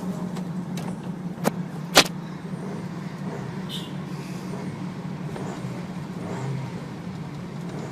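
Car engine idling steadily, with two sharp clicks about one and a half and two seconds in.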